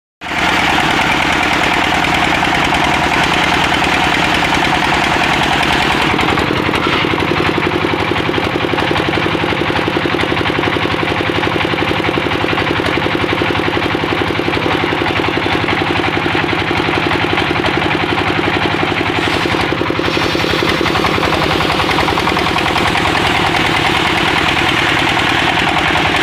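Engine of a motorised wood saw running steadily, sawing acacia timber.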